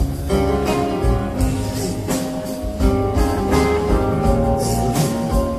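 Live concert recording of a rock band playing an instrumental passage between verses: sustained guitar and pedal steel notes over bass and drums, with cymbals and percussion hit steadily.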